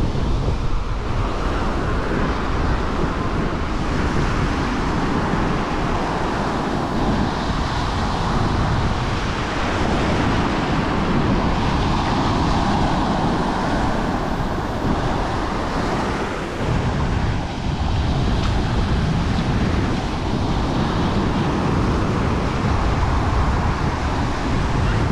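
Surf breaking and washing up a sandy beach in a steady rush, with wind buffeting the microphone as a low rumble.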